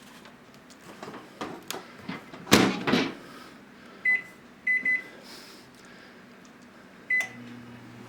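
Microwave oven being set: a few handling clicks and a loud door thud, then four keypad beeps at one pitch, after which the oven starts running with a low steady hum near the end.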